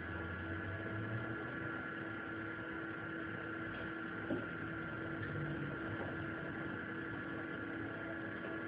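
Steady electrical-sounding hum with hiss, and a faint click about four seconds in.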